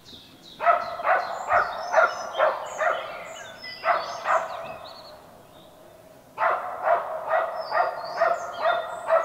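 Hunting hound barking in quick runs of about three barks a second, with a lull of about two seconds in the middle, as it works a wild boar. Small bird chirps sound high above the barking.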